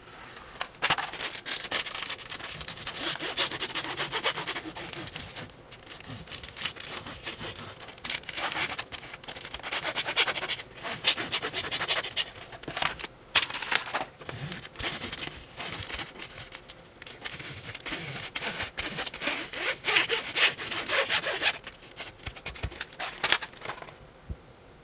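A plastic bag rubbed back and forth as a squeegee over a silicone heater pad, pressing it onto its self-adhesive backing on an aluminium build plate, along with the liner being peeled off the adhesive. It comes as repeated rubbing strokes with short pauses, dying away near the end.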